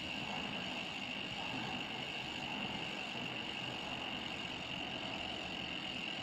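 Ragusa MX800 six-pawl bicycle hub freewheeling as the wheel spins, its pawls giving a steady ratcheting buzz with no separate clicks.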